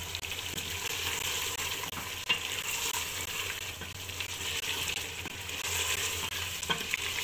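Beef pieces and ground spice masala sizzling in oil in an aluminium pressure cooker while a wooden spoon stirs and scrapes them round the pot, with one sharp knock about two seconds in.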